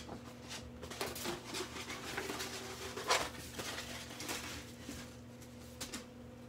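A large sheet of wallpaper rustling and crinkling as it is handled and rolled up, with a louder crinkle about three seconds in.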